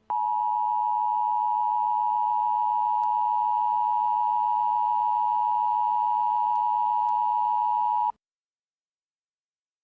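Emergency alert attention tone from a mock EAS broadcast: one steady, unwavering tone near 1 kHz, held for about eight seconds and then cutting off abruptly.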